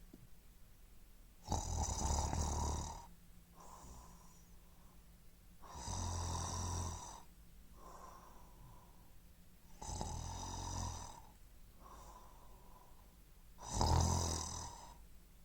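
Snoring in a slow, regular rhythm: four loud snores about four seconds apart, each lasting about a second and a half, with softer breaths between them.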